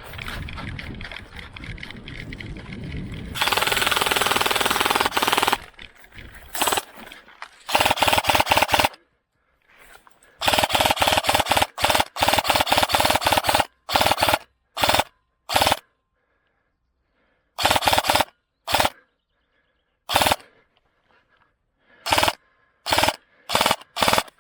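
Airsoft gun firing on full auto in bursts of rapid sharp shots: a long burst about three seconds in, several more in the middle, then short bursts near the end. Rustling movement comes before the first burst.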